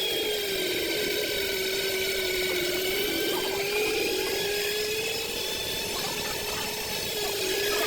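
Electric home flour mill (atta chakki) motor running at speed while grinding ragi (finger millet) into flour, a steady whine that wavers slightly in pitch as the grain loads it.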